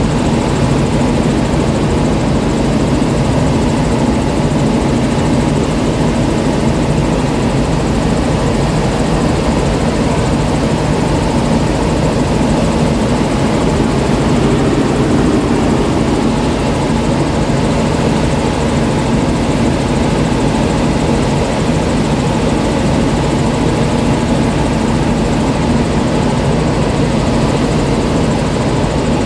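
Helicopter running steadily in flight: an even, unbroken drone of engine and rotor with a steady low hum.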